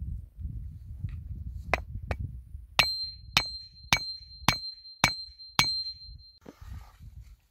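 Hatchet blows splitting a birch log: two lighter knocks, then six sharp strikes about half a second apart, each with a high metallic ring.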